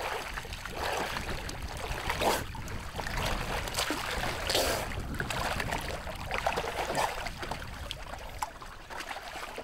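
Swimmer's arm strokes splashing in choppy sea water, in irregular surges every second or two.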